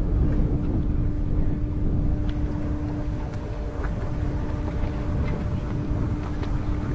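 Boat machinery running with a steady hum over a low rumble, with a few faint clanks.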